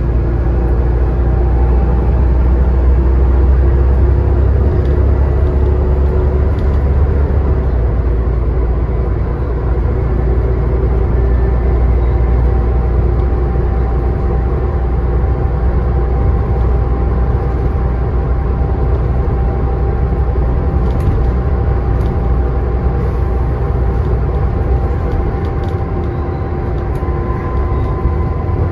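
Scania N94UD double-decker bus driving, with a steady heavy engine and drivetrain rumble and faint steady whines above it. The deepest rumble eases a little near the end.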